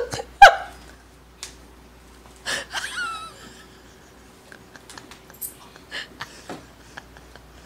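Mostly quiet room broken by a few short vocal noises from a child reacting in disgust to the taste of sardine: a sharp sound about half a second in and a brief whiny sound with falling pitch about three seconds in. Scattered light clicks follow.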